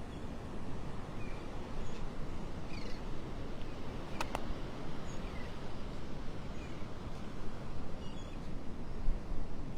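Birds giving short chirping calls every second or two over a steady low background rush. Two sharp clicks about four seconds in.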